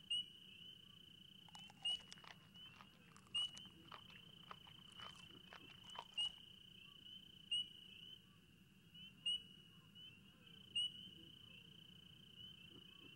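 Night insect chorus: a steady high trill, with a short louder chirp about every second and a half. Scattered faint clicks in the first half.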